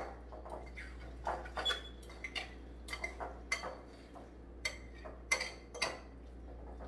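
Metal fork mashing avocado against the side of a glass bowl: irregular clinks and scrapes of the tines on glass, the loudest a little after five and six seconds in.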